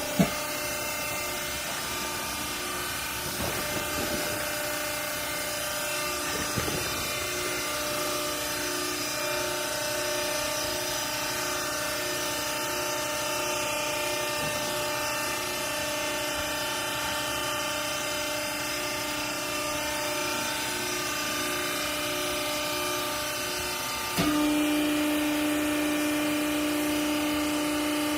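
Vertical rag baler's hydraulic power unit running steadily, a machine hum with several steady whining tones. There is a brief knock right at the start, and about 24 seconds in the sound steps up louder as a strong low steady tone comes in.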